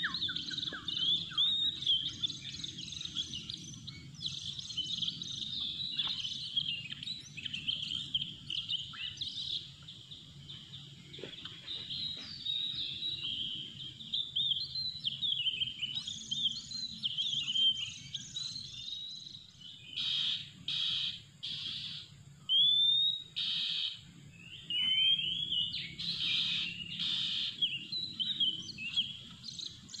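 Oriental magpie-robin singing a continuous run of varied whistles, chirps and sliding notes, with harsh rasping calls about two-thirds of the way through and again near the end.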